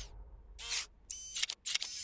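Cartoon sound effects: a few quick electronic zaps and clicks, like a camera flash firing, followed by a steady hiss from just before the end.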